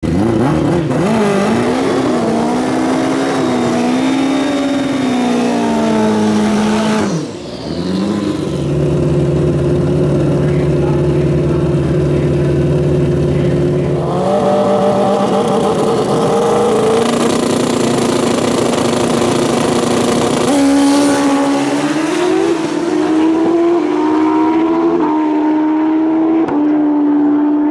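Pro Street drag motorcycle engines running loud, revving with a wavering pitch, then held at steady revs that step up in stages. There is a brief dip about seven seconds in.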